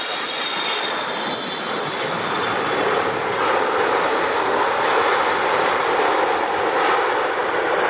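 Airliner passing, its engine roar growing steadily louder.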